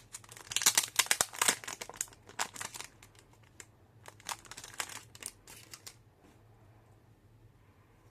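Packaging crinkling as it is handled, a dense run of crackles for about six seconds, loudest in the first three, then dying away.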